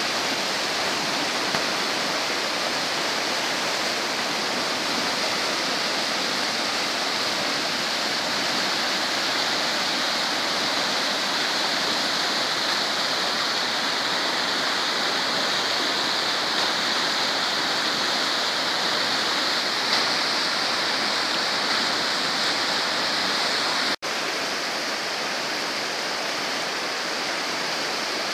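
River in flood: fast, muddy water rushing through rapids with a steady, even rush of noise. The sound breaks off for an instant near the end.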